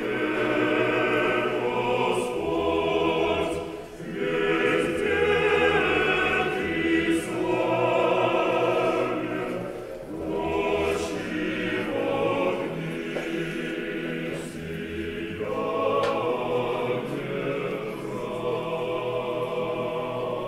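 Orthodox church choir singing a chant in sustained phrases, with brief breaks between them.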